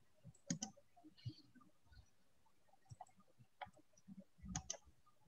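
Faint computer mouse button clicks over quiet room tone: a quick double click about half a second in, then single and paired clicks near the end.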